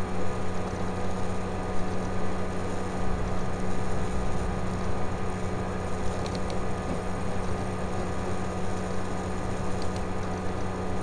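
Steady low electrical hum over an even hiss, the background noise of the recording setup, with a few faint clicks.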